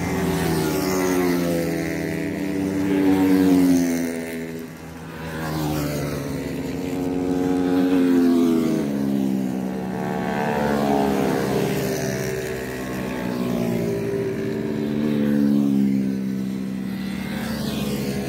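Racing motorcycles passing at speed one after another, each engine's note rising and then falling in pitch as it goes by. The loudest passes come about three and a half seconds and eight seconds in.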